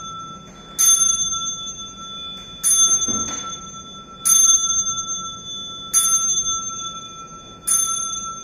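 Buddhist ritual bell struck five times at an even pace, about every second and a half to two seconds, each strike ringing on with a clear high tone that fades slowly until the next. The strikes mark the worshippers' bows.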